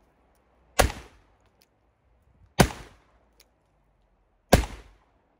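Pietta reproduction 1851 Colt Navy cap-and-ball revolver in .44 calibre, loaded with 18 grains of black powder, fired three times about two seconds apart; each shot is a sharp crack with a short echoing tail. Faint clicks come between the shots.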